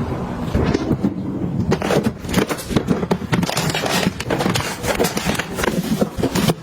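Irregular clicks, taps and crinkles of containers and packaging being handled and set down while a fridge is restocked.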